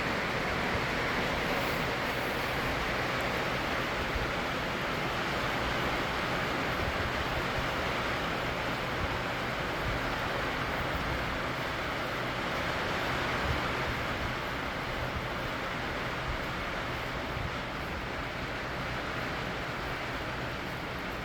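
Heavy rain falling steadily, an even hiss with no distinct thunderclaps.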